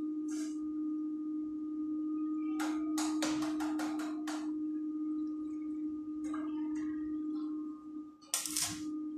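Steady hum of a stick (arc) welding machine, with a cluster of short, sharp bursts about three seconds in and a louder burst near the end as the electrode strikes an arc on the steel tube frame.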